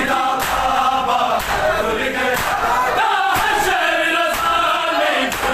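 Crowd of men chanting a noha together while beating their chests in matam, the slaps landing in a steady beat about twice a second.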